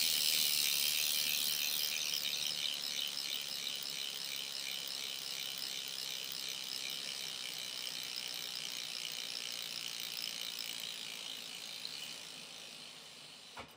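BMX rear hub freewheel ticking rapidly as the rear wheel spins free, the pawls clicking in a fast, even buzz. The ticking slows and fades as the wheel coasts down, dying away near the end.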